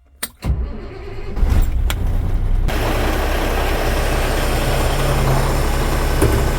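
Concrete pump truck's diesel engine cranked by the starter, catching about a second in and settling into a steady idle. About two and a half seconds in, a loud steady hiss joins the engine.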